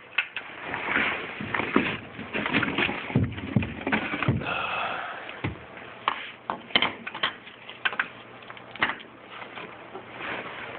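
A door on a Norton hydraulic door closer being worked open and shut: a series of clicks and knocks from the latch and frame, with rubbing and scraping between them.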